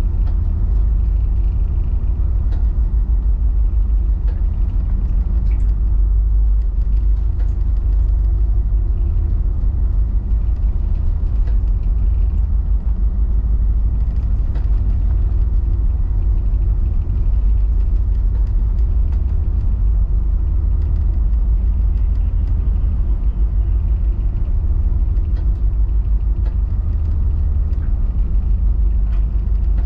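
Steady low rumble of an escort tug's engines heard inside its wheelhouse, with a steady hum over it.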